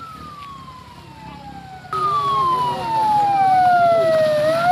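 Ambulance siren wailing in a slow rise and fall of pitch, faint at first and much louder from about two seconds in. The ambulance van's engine runs underneath.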